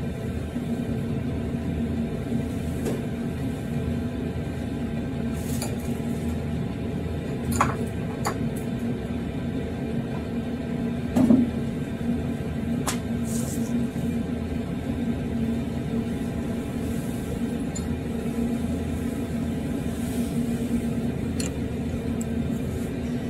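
Metal tools clinking and clicking now and then as they are handled on a workbench, the sharpest clink about halfway through, over a steady low hum.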